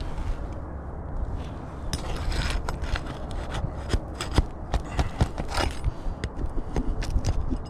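Scraping and rubbing on asphalt roof shingles as they are worked loose with hand tools during a shingle repair, with many irregular sharp clicks and taps over a steady low rumble.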